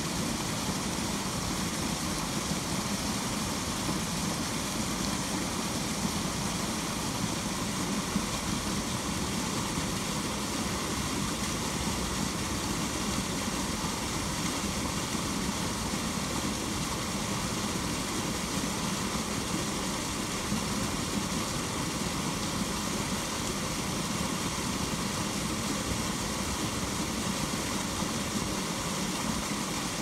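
Water splashing steadily onto the surface of a garden lily pond, an even rushing hiss with a low steady hum underneath.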